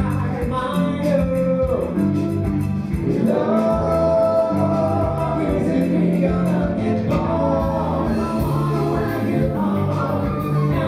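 Live band playing upbeat dance music, with singing over a stepping bass line and drums.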